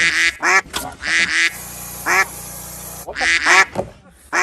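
A duck quacking over and over in short loud calls, with a brief pause partway through.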